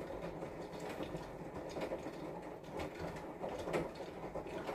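Metal spatula scraping and tapping as cream frosting is spread over a layered cake, in short irregular strokes over a steady background noise.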